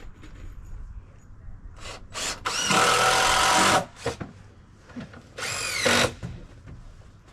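Power drill driving a screw into deck framing wood: a short blip, then a loud run of about a second, and a second run near the end whose motor pitch drops as it stops.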